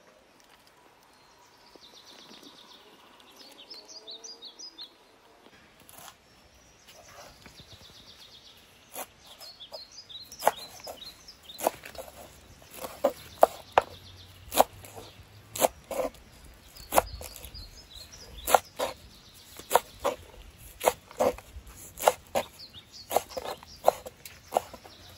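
Large knife chopping leafy greens on a wooden cutting board: sharp knocks of the blade on the board, roughly one or two a second, starting about nine seconds in. Birds chirp faintly in the background.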